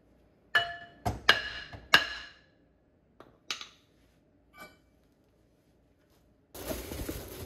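Cast-iron front brake rotor clanking and ringing as it is worked off the wheel hub: four sharp metallic knocks with a bell-like ring in the first two seconds, then a few lighter knocks. Near the end a steady hiss takes over.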